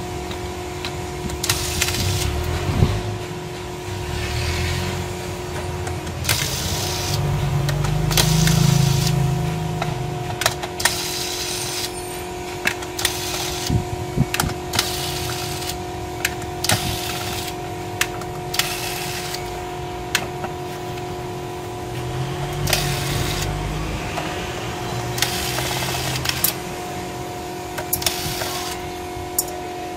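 Corded electric screwdriver whirring in short bursts as it backs out laptop bottom-cover screws, with clicks and taps of the bit, screws and plastic case between runs. A steady hum sits underneath.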